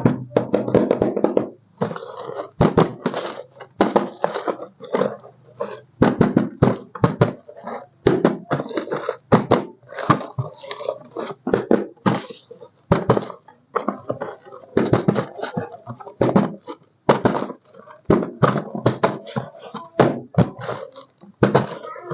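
A voice mixed with many sharp, irregular clicks and knocks.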